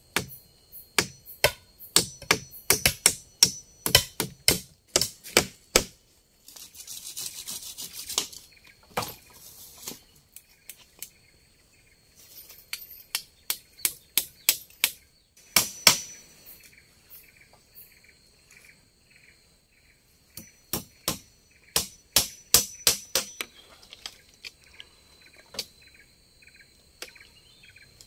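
Runs of quick, sharp knocks, two or three a second, in three bursts, with a short hissing rustle after the first run. A steady high-pitched drone runs underneath, and a short chirp repeats about twice a second through the later part.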